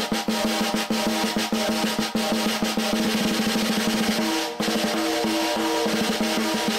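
PVC-shell snare drum played with sticks in quick strokes and rolls, tuned high with an old Evans EC Reverse Dot top head and no muffling, so the head rings on with a steady pitched overtone. The snare wires sound awfully snappy and crisp, which the drummer suspects comes from the wires hanging over the bottom bearing edge. The playing breaks briefly about four and a half seconds in.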